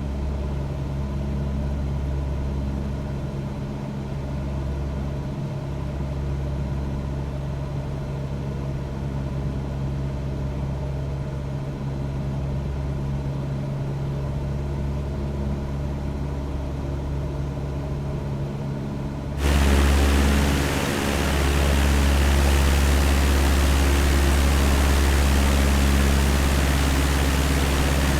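Cessna 172's piston engine and propeller droning steadily, as heard from inside the cabin. About nineteen seconds in, a loud steady hiss suddenly joins the drone and the sound gets louder.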